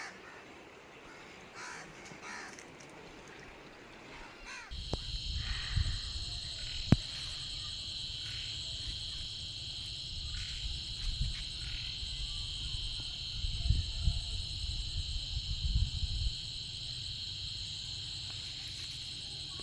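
A few faint crow caws, then about five seconds in a steady, high insect chorus of crickets starts abruptly and runs on, with a low rumble coming and going beneath it and a single sharp click.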